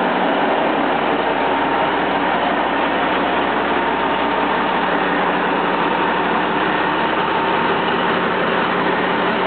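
Autocar semi-tractor's diesel engine idling steadily.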